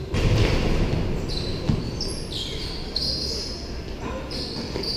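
Basketball bouncing on the court as it is dribbled, with sneakers giving short, high squeaks several times.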